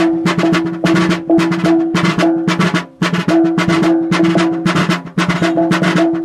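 Maguindanaon tambul drum beaten with two sticks in a quick, even rhythm, with a hand-held gong struck alongside it and ringing a steady low tone. The playing breaks off briefly twice near the middle.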